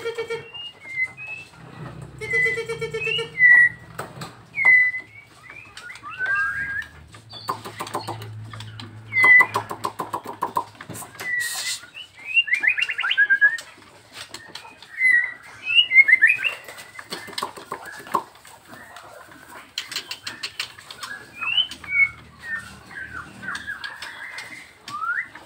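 White-rumped shama (Nias murai batu) singing: a varied string of short whistles, chirps, rising and falling glides and quick trills, in bursts with short gaps.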